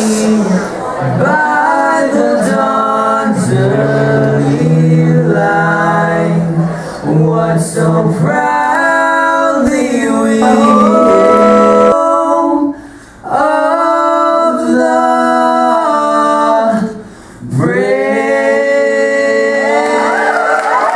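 Two young male voices singing a song into handheld microphones, trading lines and then singing together, in long held notes with two short breaks between phrases.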